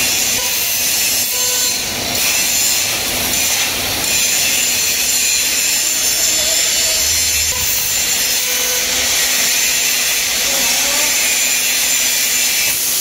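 6 kW CNC fiber laser cutting machine cutting metal plate: a steady, loud hiss from the gas jet at the laser cutting head.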